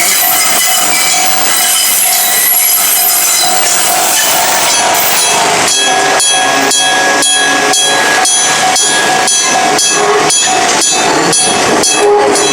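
An Enoden (Enoshima Electric Railway) train running past the level crossing with a loud rushing noise. From about five seconds in, the crossing's warning bell rings in an even rhythm of about three strikes a second.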